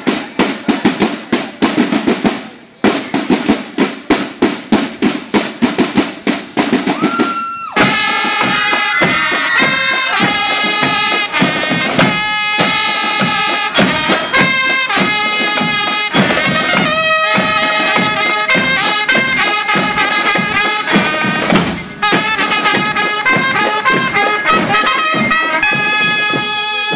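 Marching band playing: the drums beat a quick cadence, then about eight seconds in the trumpets and other brass come in with a march tune over the drums. The band breaks off briefly about five seconds before the end, then plays on.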